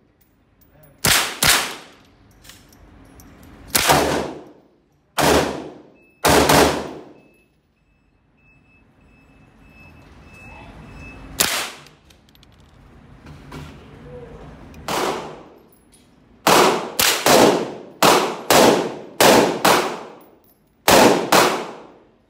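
Semi-automatic AR-style rifle fired shot by shot in an indoor range, each shot a sharp crack with an echoing tail. Shots come singly and unevenly for the first several seconds, then after a lull a quicker string of about a dozen follows, roughly two a second, through the last seven seconds.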